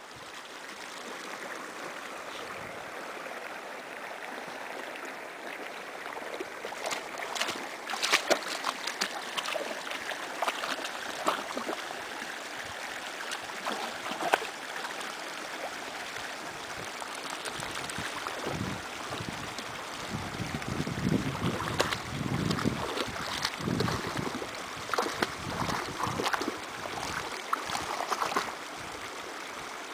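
A dog wading and splashing through shallow lake water at the shore, with irregular splashes and sloshing that come in clusters, a few seconds apart.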